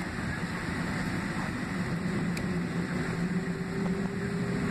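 Steady cabin noise inside a Boeing 767-300ER on the ground: the low rumble and hum of its GE CF6-80C2B6 engines and air system. A faint steady whine joins in about two seconds in.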